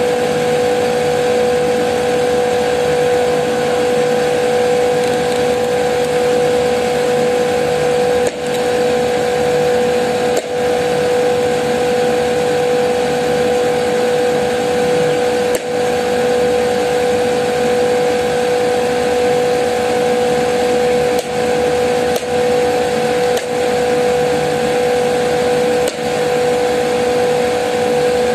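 Air-cooled chiller with twin-screw R134a compressors running under load: a loud, steady machine drone with a strong constant whine.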